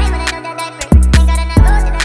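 Hip hop instrumental beat: deep booming bass hits every half second or so, with sharp drum clicks and a steady held synth chord above.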